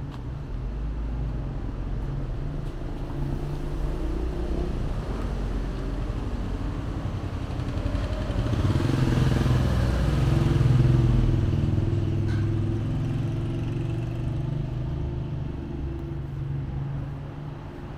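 A motor vehicle passes on the street, its engine growing louder toward the middle and then fading, over a steady low rumble of traffic.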